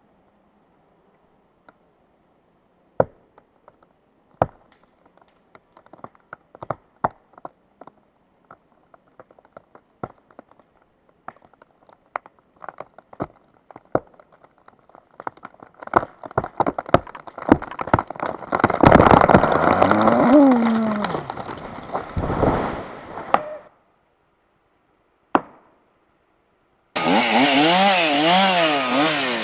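A felled tree's trunk giving way: single sharp cracks that come faster and faster, then a loud crash lasting several seconds as it goes over. Near the end a chainsaw runs, its pitch wavering up and down.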